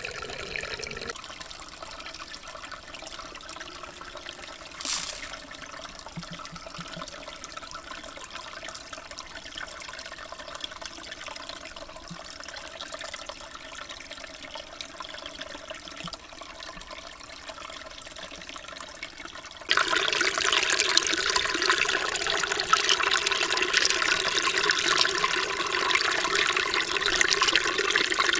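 Shallow stream trickling over rocks, then, about two-thirds of the way through, much louder close splashing and swishing as a hand rakes through the water picking up freshwater clams.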